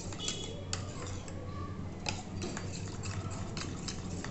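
Steel spoon stirring cornflour into cold milk in a stainless steel bowl, clinking and scraping against the bowl at irregular intervals, over a low steady hum.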